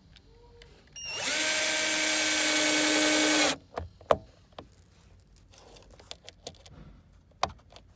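Cordless drill/driver running at a steady whine for about two and a half seconds, driving a press-stud screw into a van's interior side panel. It starts about a second in and stops abruptly. A sharp click follows, then a few small clicks.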